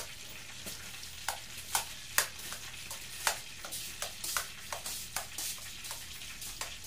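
Small metal spoon stirring a thick ketchup-and-mayonnaise sauce in a ceramic bowl, the spoon clinking lightly and irregularly against the bowl about twice a second.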